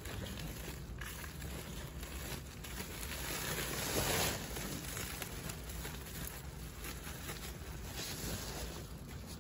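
White woven plastic sack rustling and crinkling as dry potting mix is scooped and poured from it into a large pot, the soil pattering down. A louder stretch comes about four seconds in.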